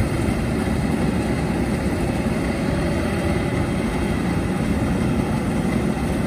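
Kubota DC-105X combine harvester running steadily while cutting rice, its diesel engine and machinery giving an even, unbroken drone.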